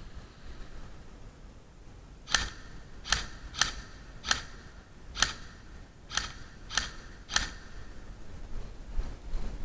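Airsoft gun fired in single shots: eight sharp snapping shots over about five seconds, spaced unevenly about half a second to a second apart.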